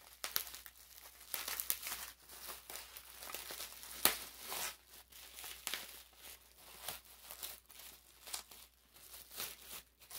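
Packaging being handled and unwrapped by hand: irregular rustles and crackles of paper or plastic, with a sharp crack about four seconds in.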